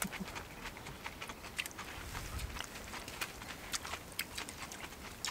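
People eating ramen with bean sprouts: quiet chewing with scattered small crunches and clicks.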